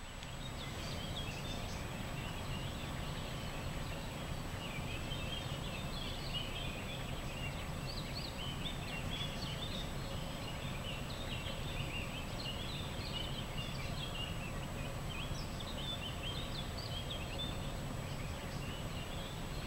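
Common pheasant chicks peeping: many short, high chirps in quick succession, over a steady low background noise.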